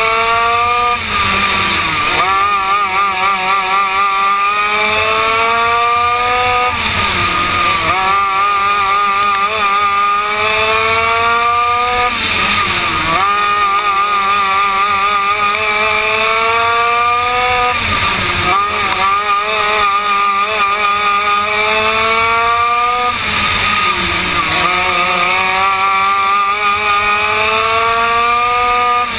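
Single-cylinder two-stroke Yamaha KT100 kart engine heard on board at racing speed. Its pitch winds steadily up down each straight and drops off sharply into each turn, about every five to six seconds, lap after lap.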